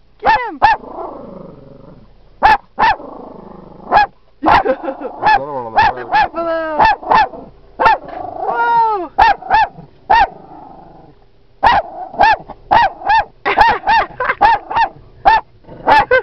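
Dachshund barking: many rapid, high-pitched barks in bursts, with some longer, bending yelps around the middle.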